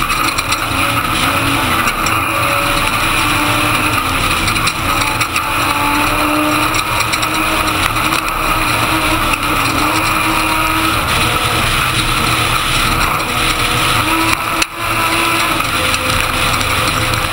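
Class 1450 Ford Ranger desert race truck at race pace, heard on board: the engine runs hard, its pitch shifting up and down with the throttle, over constant rushing wind and off-road noise. Near the end the sound dips suddenly for a moment.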